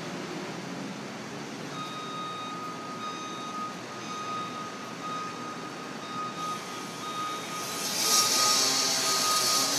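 Reversing alarm of a crawler-mounted pile-driving rig beeping repeatedly at one steady pitch while the rig moves, over the background noise of the machinery. Near the end a loud hiss rises over it.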